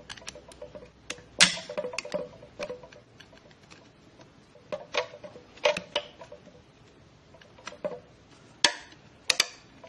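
Steel screwdriver tips clicking and scraping against a C-clip and the splines of a Nissan Pathfinder automatic transmission's output shaft as the clip is pried out of its groove. There is a scatter of sharp metallic clicks, some leaving a brief ring, the loudest about a second and a half in and near the end.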